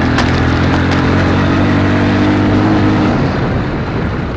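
Off-road vehicle engine running steadily while driving at an even pitch, turning rougher and slightly quieter after about three seconds.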